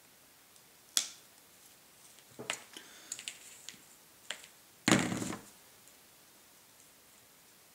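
Small hand cutters snipping root material, a sharp click about a second in, then light rustling and small clicks as fine roots are handled, and a short clatter a little before the middle as the cutters are set down on the table.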